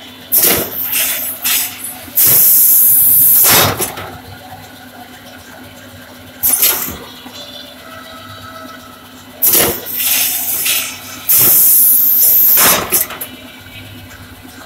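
Net sealing and cutting machine working through its cycle: sharp hisses of compressed air from its pneumatic valves and cylinders, each a short burst followed by a longer hiss of about a second and a half, over a steady low machine hum. The cycle comes round twice, with a shorter hiss between.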